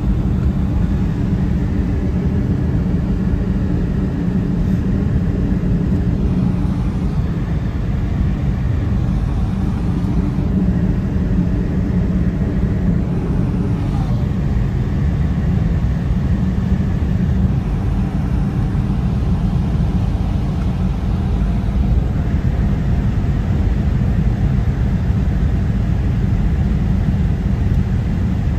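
Steady low rumble of a car driving at road speed, with its engine and tyre noise heard from inside the cabin.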